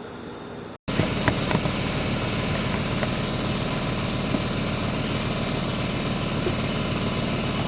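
A motor running steadily with a continuous hiss and a low hum, starting abruptly about a second in.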